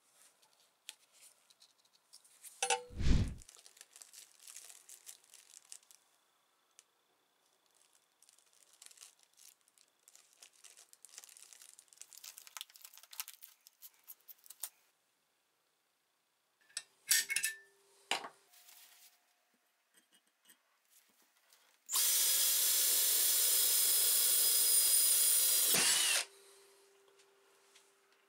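Faint handling and rustling of drill bits in plastic bags, with one loud thump about three seconds in. Near the end an electric drill runs steadily for about four seconds, boring into a steel square tube held in a vise, then winds down with a falling pitch.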